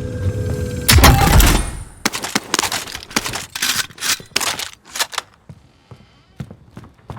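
Video game gunfire: a loud blast about a second in, then a quick string of gunshots for about three seconds, fading to faint taps near the end.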